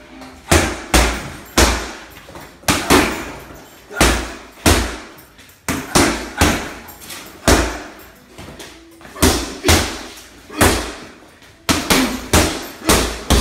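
Boxing gloves punching a Ringside heavy bag: sharp thuds landing in quick combinations of two to four, with short pauses between combinations.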